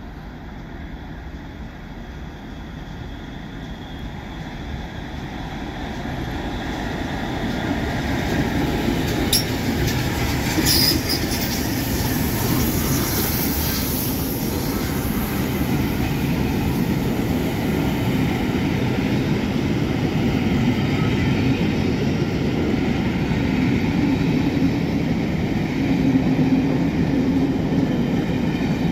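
A train hauled by Castle-class steam locomotives approaching and passing close by, growing louder over the first eight seconds. A few brief, sharp high-pitched sounds come about nine to eleven seconds in. Then the long rake of coaches rolls past with a steady rumble and wheel clatter.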